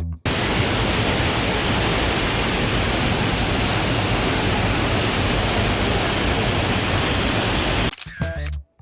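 Waterfall, a loud steady rush of falling water close to the microphone. It cuts in abruptly just after the start and stops abruptly shortly before the end.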